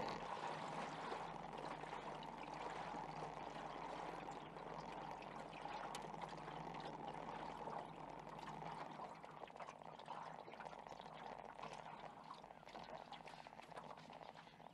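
Water splashing and trickling against the side of a small jon boat, a steady wash that fades gradually over the last few seconds.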